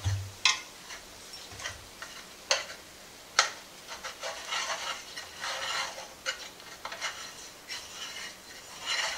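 A utensil stirring and scraping through flour and sautéed onions and celery in a stainless steel stockpot, with a few sharp knocks against the pot. The flour is being cooked into the vegetables until lightly browned.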